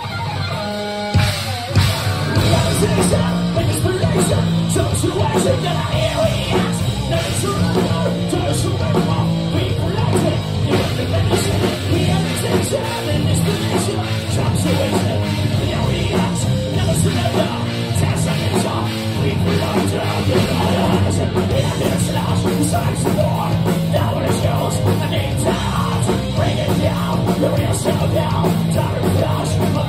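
Live thrash metal recorded through a phone's microphone: distorted electric guitars, bass and drum kit playing loud and fast. The full band comes in about a second and a half in.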